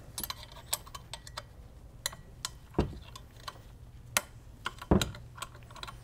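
A metal wrench clicking and clinking irregularly on the clamp bolts of a turbocharger housing as they are loosened, with two heavier knocks near the middle.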